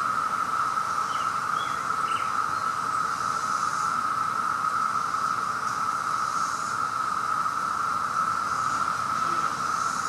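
Chorus of 17-year periodical cicadas: one steady, unbroken drone that holds at an even pitch and level.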